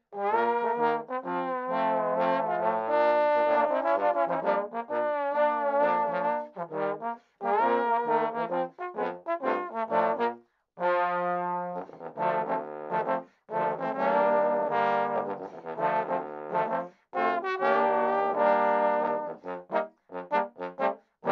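Trombone quartet of three tenor trombones and a bass trombone playing a lively piece together, in phrases broken by a few brief rests.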